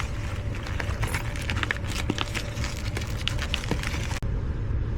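Many quick clicks, rattles and scrapes of hands working at an air handler's filter slot, over a steady low hum. The high hiss cuts off suddenly near the end.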